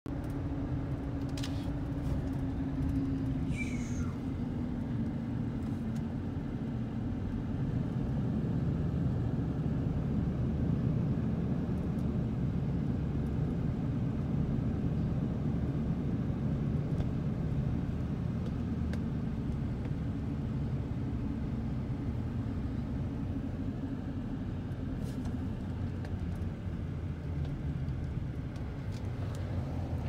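Pickup truck driving, heard from inside the cab: a steady low rumble of engine and road noise, with a brief high falling squeak about four seconds in.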